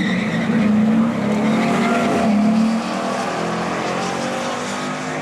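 Car engine at full throttle, accelerating hard down a drag strip. Its pitch climbs, then steps down about three seconds in, when the sound also gets a little quieter.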